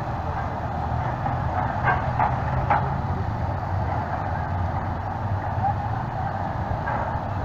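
Engines running with a steady low rumble as a line of motorcycles rides slowly onto a ferry's stern ramp, with a few brief knocks about two to three seconds in.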